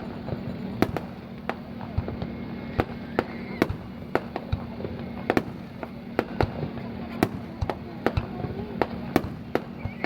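Fireworks display bursting: a rapid, irregular string of sharp bangs, several a second, over a steady low hum.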